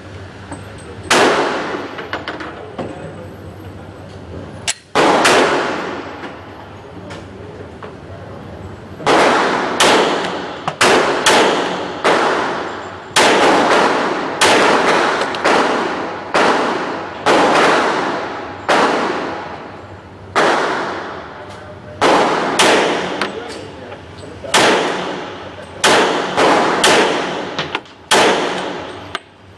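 Handgun shots fired one after another at an uneven pace, each sharp crack trailing off in a long echoing decay. Two shots come in the first five seconds, then a steady string of about two dozen more from about nine seconds in.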